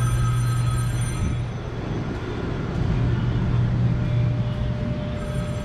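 A steady low mechanical hum over a rushing noise, as from machinery running.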